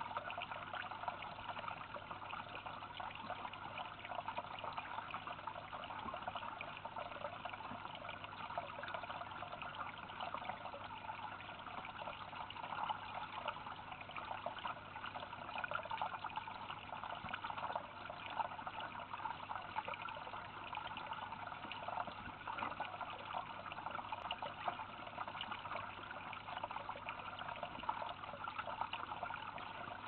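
Small stone garden fountain trickling steadily, water splashing down into a shallow dish.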